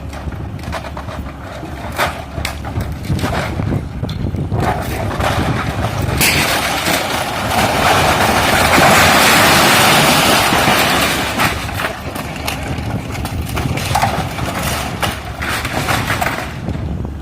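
Komatsu PC130F hydraulic excavator's diesel engine running under load while demolishing a building, with repeated sharp cracks and knocks of the structure breaking. About six seconds in, a louder rush of crashing and rattling debris lasts some five seconds.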